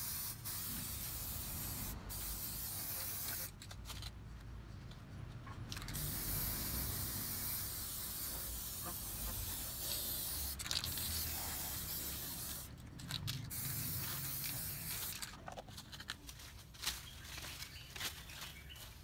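Aerosol spray-paint can hissing in long bursts as red paint is sprayed onto a PVC pipe, with a pause about four seconds in and a brief one about thirteen seconds in. About fifteen seconds in the hissing stops and scattered faint crackles follow.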